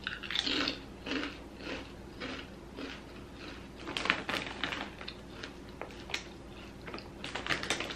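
A crunchy dill pickle potato chip being chewed with the mouth close by, about two soft crunches a second at first, then sharper crackling crunches about four seconds in and again near the end.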